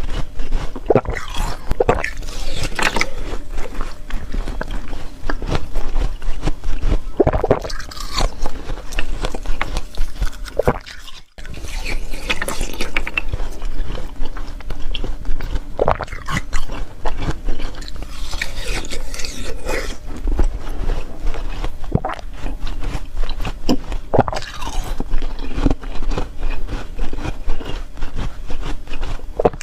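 Ice being bitten and chewed close to the microphone: a dense, continuous crackle with louder crunches every few seconds, broken by a brief gap about eleven seconds in.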